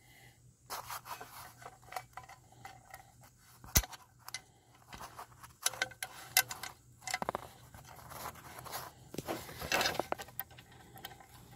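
Irregular scrapes, rustles and small clicks of hands handling a steering gear bushing and the steel sector gear plate, with one sharp click about four seconds in and a denser burst of scraping near the end.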